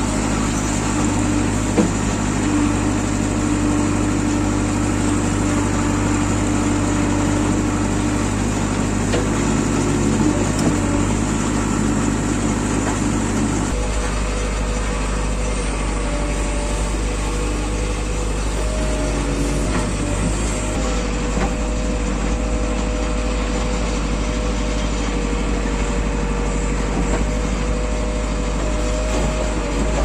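Diesel engine of a JCB 3DX backhoe loader running steadily, heard close up. About fourteen seconds in the sound changes to a deeper drone with a faint steady higher tone over it.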